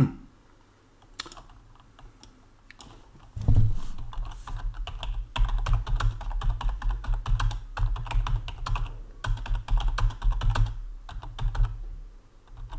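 Typing on a computer keyboard. A few scattered keystrokes come first, then from about three and a half seconds in a fast, continuous run of typing.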